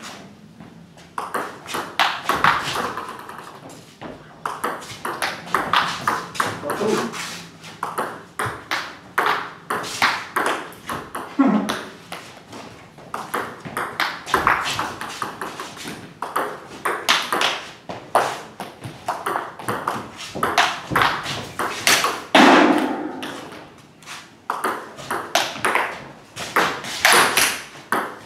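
Table tennis rally: the ball clicks in quick succession off the table and the bats. One bat carries SPINLORD Feuerstich OX long-pips rubber on a Sword 309 defensive blade, used for backhand attacks against backspin. The rallies are broken by short pauses.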